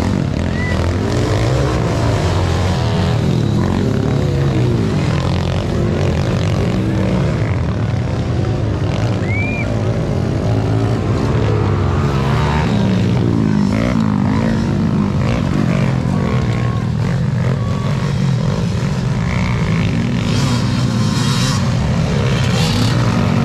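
Motocross dirt bike engines revving and droning as bikes ride the course, their pitch rising and falling as they pass, over a constant low rumble.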